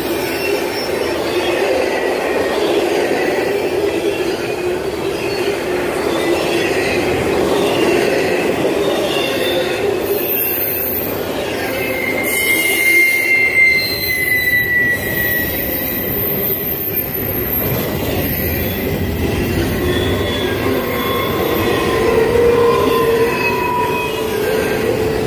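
Double-stack intermodal freight train rolling past, its well cars rumbling and rattling steadily over the rails, with steel wheels squealing in thin high tones that come and go, most strongly about halfway through.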